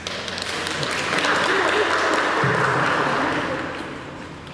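Crowd noise from a room full of people: indistinct voices and a noisy swell that builds about a second in and fades toward the end.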